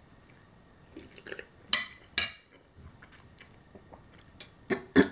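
Close-miked eating sounds: a few short, wet mouth smacks and chewing noises in small clusters, one group in the first half and another near the end.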